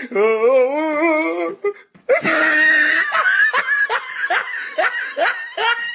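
Loud, exaggerated laughter: a long wavering laugh, then, after a short break, a rapid run of short rising 'ha' laughs, about four a second.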